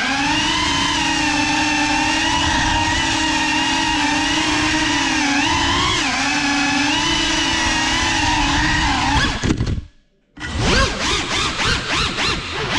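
GEPRC Cinelog35 cinewhoop's brushless motors and ducted propellers whining steadily, the pitch shifting slightly with throttle. About ten seconds in the sound cuts out almost to silence for a moment, then comes back in quick rising and falling surges of throttle.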